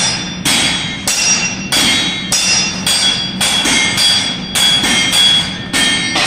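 Blacksmith's hammer striking hot steel on an anvil at about two blows a second, each blow leaving a bright metallic ring.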